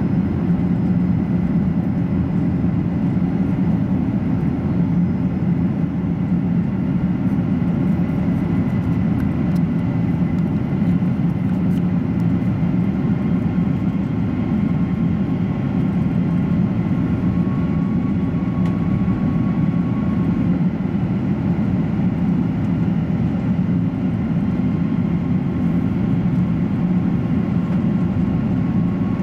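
Steady cabin roar inside a Boeing 747-400 descending toward landing: engine and airflow noise, strongest in the low range, with a faint thin whine above it.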